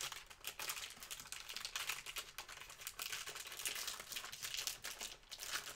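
Plastic cookie wrapper crinkling and crackling as it is handled and worked at to get it open.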